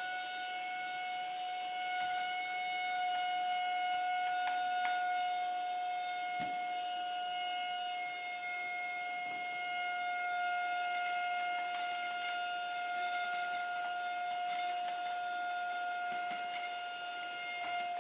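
A steady, unbroken electronic beep tone with a few faint clicks.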